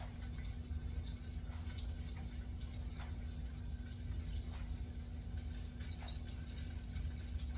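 Chicken wings deep-frying in hot oil: a steady sizzle with a few faint pops about every second and a half, over a low steady hum.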